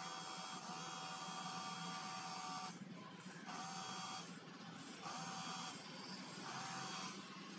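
Small electric pump motor of an IR-sensor-triggered sanitizer dispenser running with a faint whine. It cuts out briefly three times and restarts, switching as the sensor detects the hand.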